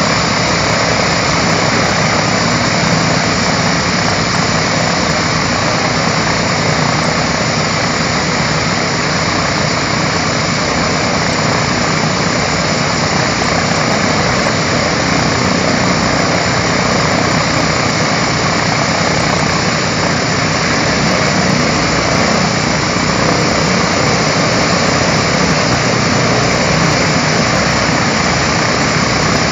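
B-17 bomber's four Wright R-1820 Cyclone radial engines running together at a steady, loud idle, just after startup.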